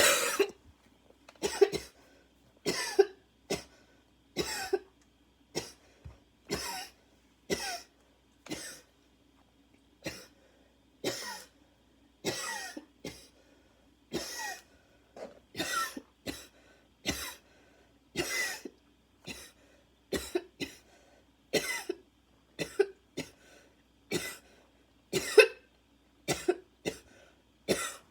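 A woman's harsh, barking coughs in a long fit, about one a second and sometimes two in quick succession, with short gaps for breath. Her chest is tight enough that she badly needs her inhaler.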